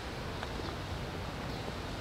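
Steady outdoor background noise, a low rumbling wash like wind on the microphone, with no distinct event.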